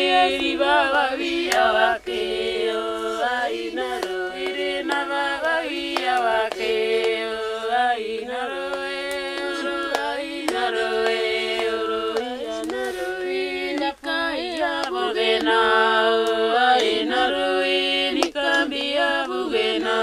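Women singing a lament together, unaccompanied, in a chant-like melody with long held notes.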